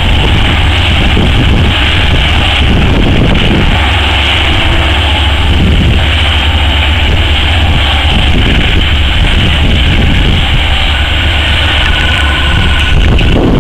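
O&K RH120-C hydraulic mining shovel working, its diesel power running as a loud, steady deep drone while it swings and digs.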